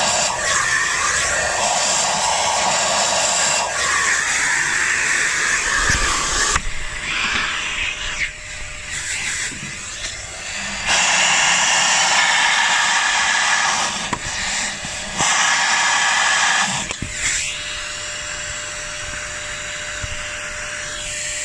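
Vacuum cleaner running, sucking rust debris out of a spark plug well. It is a steady rushing whine that rises and falls in loudness several times.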